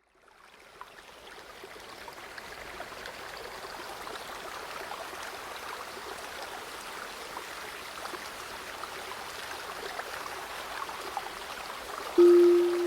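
River water running and babbling, fading in over the first few seconds. About twelve seconds in, a gong is struck once and rings on with a steady low tone; it is the loudest sound, the cue to start breathing.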